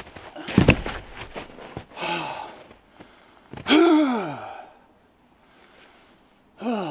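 A heavy log drops onto the snow with a loud thud about half a second in. A man then breathes hard from the effort: a short voiced breath about two seconds in, a long sigh falling in pitch around four seconds in, and another falling sigh at the end.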